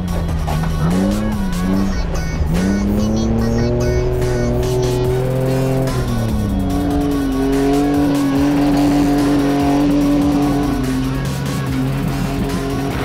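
Ford Explorer's engine heard from inside the cabin while it is driven hard: the revs swing up and down, climb, drop sharply at a gear change about six seconds in, then hold high and steady. Background music plays underneath.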